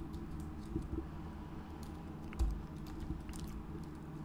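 Typing on a computer keyboard: irregular keystrokes while code is entered.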